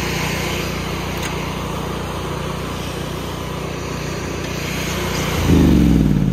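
Honda iGX800 V-twin engine of a pressure-washer rig running steadily, then switched off about five seconds in, its note falling as it winds down.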